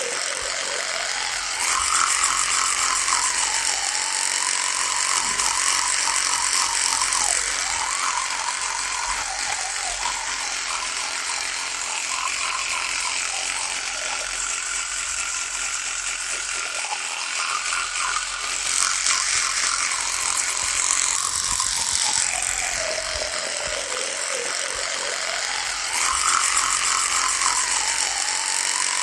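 Electric toothbrush buzzing without a break, its pitch drifting slowly up and down, with a few louder stretches.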